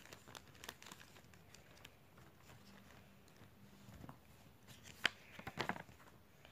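Faint rustling and handling of paper and plastic, with a few sharper rustles about five seconds in as the pages of a paper book are flipped.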